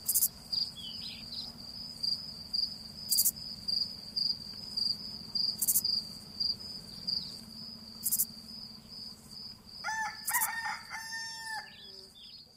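Rural outdoor ambience: insects chirping in a steady pulsing trill, with sharp ticks every two to three seconds and a faint low hum, and a rooster crowing about ten seconds in.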